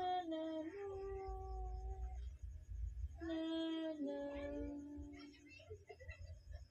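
A woman humming a lullaby in slow, long held notes, two phrases with a short pause between.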